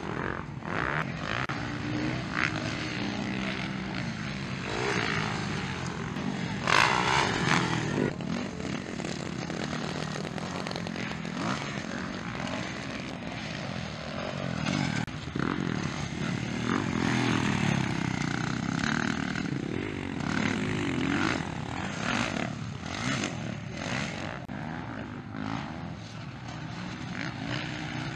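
Motocross dirt bike engines racing on a dirt track, their pitch rising and falling as the riders accelerate, shift and back off, with a louder rev about seven seconds in.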